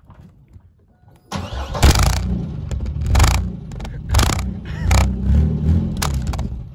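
A 1998 GMC Sonoma pickup's engine starts about a second in and is revved several times in quick surges. Its exhaust blows straight into an empty plastic water bottle held over the tailpipe.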